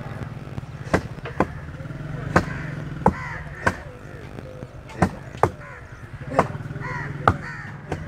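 Pickaxe and hoe blows striking packed soil and roots, about nine sharp strikes at uneven intervals. Crows caw in the background.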